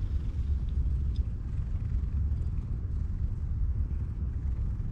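Cat purring steadily close by, a low continuous rumble.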